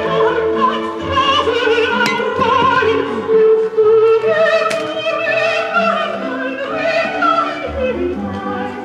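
Opera singing with orchestral accompaniment: a voice holding long notes with vibrato.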